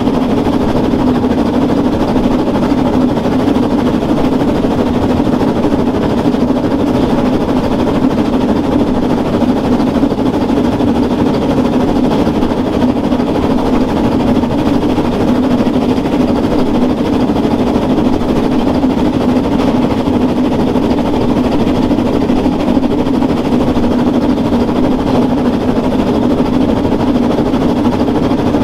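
Narrow-gauge steam train hauled by locomotive 99 4011-5, heard from aboard while running: a steady, unbroken noise of wheels clattering on the rails and the engine working.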